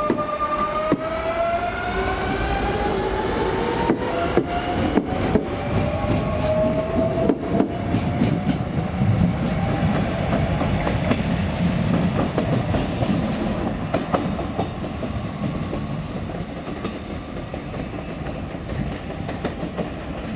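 CP series 2240 electric multiple unit pulling away from the platform, its traction motors giving a whine that rises steadily in pitch as it picks up speed. Sharp wheel clacks over rail joints come between about four and eight seconds in, and the rumble fades near the end as the train moves off.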